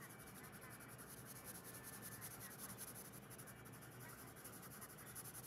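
Faint scratching of a Staedtler Luna coloured pencil shading on paper in quick, repeated back-and-forth strokes.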